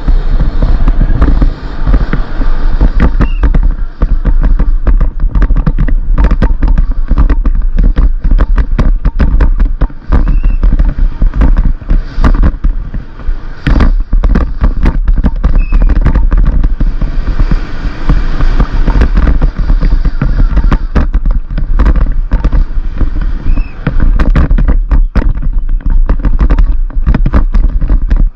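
Downhill mountain bike ridden fast over rough ground, heard from a helmet camera: heavy wind rumble on the microphone under a constant, irregular clatter of the bike's chain, suspension and tyres hitting gravel and rocks.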